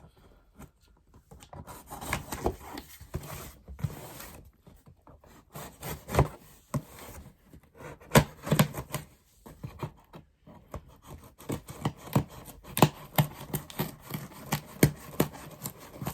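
Cardboard box and packaging being handled and pulled open by hand: rubbing, scraping and crinkling, with many sharp clicks and knocks that come thicker in the second half.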